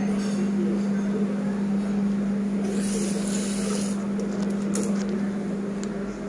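A steady low machine hum with one unchanging pitch. A brief hiss comes about three seconds in, and a few light clicks follow near five seconds.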